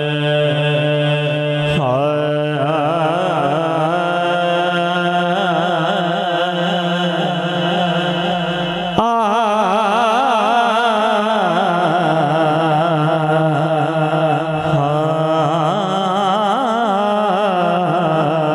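A man singing a Punjabi kalam into a microphone, without words: long held notes with wavering, ornamented pitch, in two long phrases, the second starting about halfway. A steady low tone runs beneath the voice.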